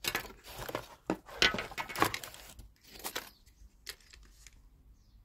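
Plastic packaging crinkling and rustling while a small solar panel is unwrapped and lifted out of its box, in a few loud rustles over the first three seconds, then a sharp click about four seconds in.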